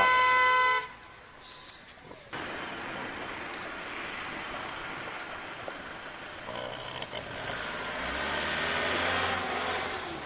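A horn beep that cuts off about a second in, followed by steady road traffic noise that swells near the end as a vehicle passes.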